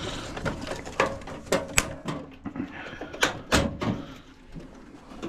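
Irregular clicks, clinks and knocks of metal parts and tools being handled while a microwave oven is taken apart, with two louder knocks about two and three and a half seconds in.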